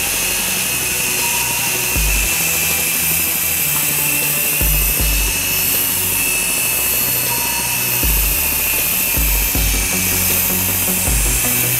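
Toy remote-controlled helicopter's small electric motor and rotors whirring steadily with a high whine. Background music with a low bass line plays underneath.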